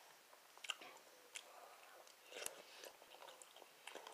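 A person chewing food, with a few sharp clicks of a utensil against a plastic food container, one of them right at the end.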